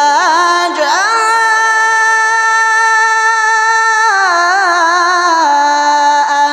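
A Quran reciter's voice holding a long, high note of tajweed recitation. It glides up onto the note about a second in, wavers through ornamental turns around four seconds in, and steps down to a lower held note near the end.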